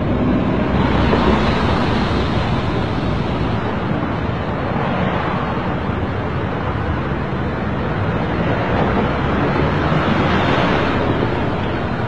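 Steady rushing noise, swelling about a second in and again near the end.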